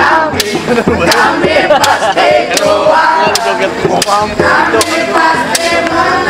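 A group of people chanting and singing loudly together, with sharp hand claps at uneven intervals.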